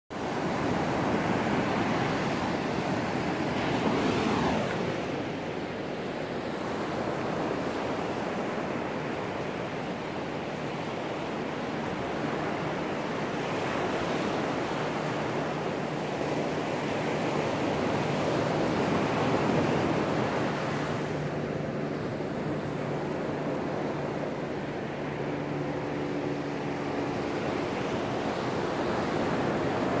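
Ocean surf breaking on a sandy beach: a continuous rush of waves that swells and eases every several seconds, loudest about four seconds in.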